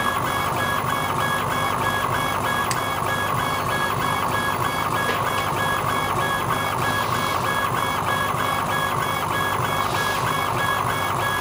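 Laser engraving machine running a raster pass, its head shuttling back and forth: stepper motors whining in short, evenly repeated strokes over a steady hiss.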